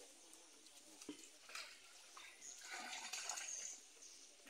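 Quiet background noise with faint, indistinct sounds and one soft tap about a second in.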